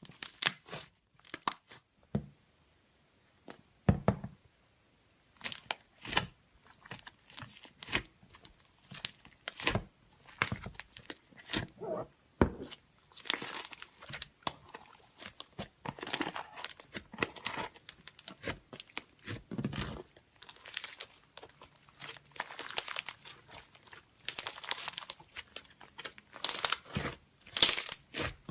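Slime being squeezed and stretched by hand, making irregular sharp clicks, pops and crackling, sparser at first and busier from about halfway.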